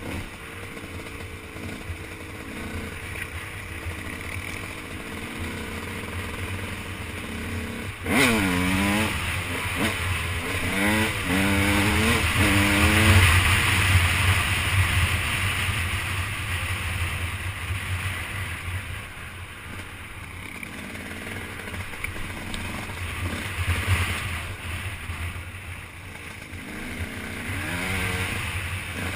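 Off-road dirt bike engine running under a steady low rumble. About eight seconds in it gets suddenly louder and revs up and down several times over some five seconds as the rider works the throttle and gears, with a few more rises near the end.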